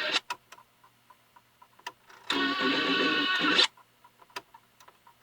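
Radio Shack 12-696 cassette deck's keys clicking, with a burst of about a second of tape sound through the radio's speaker in the middle as the tape is run on fast forward.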